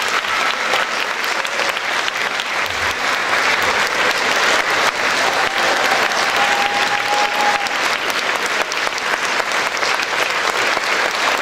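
Audience applauding steadily in a large hall, a dense crackle of many hands clapping.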